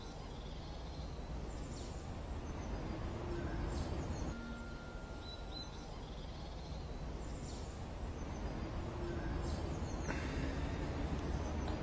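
Outdoor ambience: a steady low background rumble with small birds chirping briefly every second or two.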